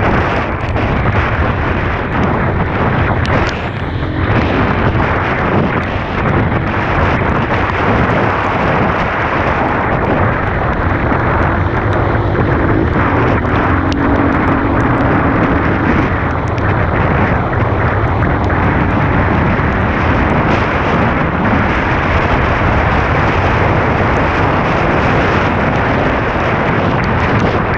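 Dirt bike engine running on the move, nearly buried under loud, steady wind buffeting on the microphone.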